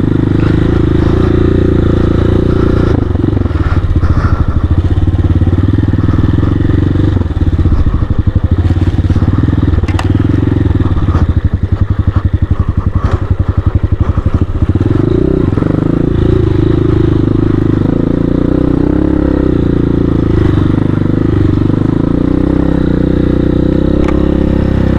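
CSC Hawk 250 dual-sport motorcycle's single-cylinder four-stroke engine running under way off-road. About a third of the way in the revs drop and the engine putts at low speed with separate firing pulses, then picks up again to a steady higher note past the middle.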